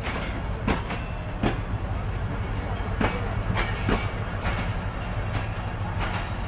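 Passenger train rolling past at a station, its wheels clicking sharply and irregularly over the rail joints. A steady low diesel hum runs underneath.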